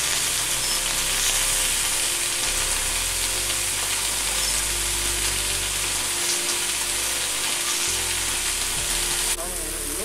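Potato, brinjal and broad bean pieces sizzling steadily in hot oil in a steel karahi on a wood-fired clay stove. Near the end the sizzle abruptly turns a little quieter and duller.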